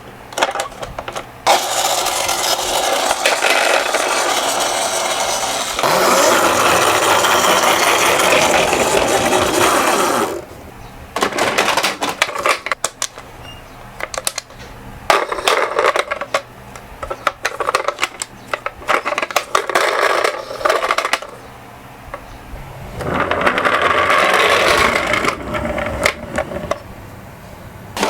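Toy minicars rolling down a slope: a steady rolling rattle lasting several seconds at a time, twice, with clattering clicks and knocks of the small cars between the runs.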